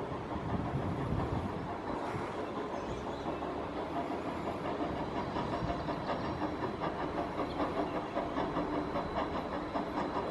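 Steam excursion train hauled by an 0-4-0 steam locomotive, running along the track while still out of sight. A faint steady high whine joins about halfway through.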